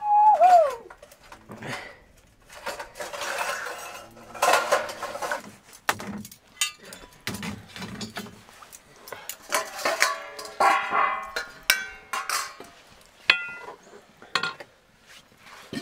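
Stainless steel plates, bowls and spoons clinking and scraping as they are handled and set down, with several short ringing metal strikes near the end. A short falling tone at the very start is the loudest sound.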